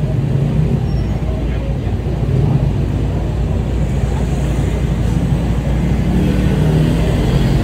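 Busy street ambience: a steady rumble of passing traffic, with people's voices mixed in.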